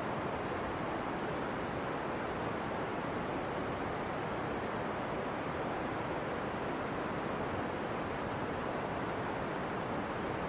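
Steam venting from a volcanic fumarole: a steady, unbroken hissing rush with no change in strength.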